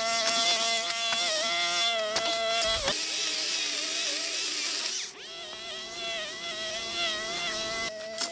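Battery-powered DeWalt 12-inch chainsaw running with a steady motor whine, dipping briefly in pitch as the chain bites into wood during cutting. It gets quieter about five seconds in.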